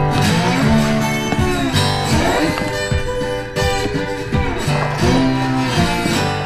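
Background music: a guitar-led song.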